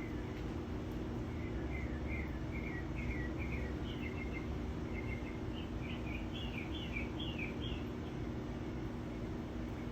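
A small bird singing a run of quick, chirpy notes that climb higher in pitch partway through, over a steady low hum of background noise.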